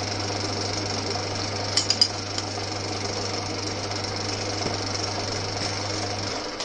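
Old Winfield metal lathe running with a steady motor hum and mechanical whirr, with a few sharp clicks about two seconds in. The motor is switched off near the end and the sound begins to wind down.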